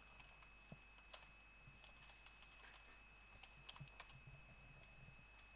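Faint typing on a computer keyboard: a few scattered key clicks, over a steady faint high-pitched tone.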